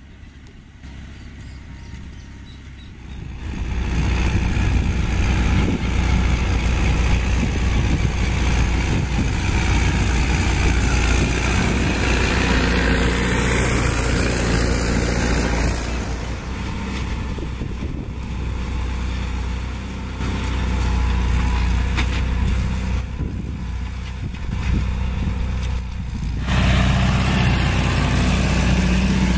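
John Deere 2850's four-cylinder diesel engine running steadily under load while pulling a disc harrow. The sound is quieter for the first few seconds, jumps louder, and changes abruptly twice where the shots cut.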